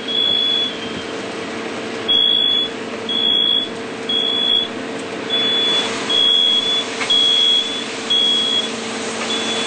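Smoke alarms sounding, a high-pitched beep repeating roughly once a second, over the steady drone of a fire truck engine running.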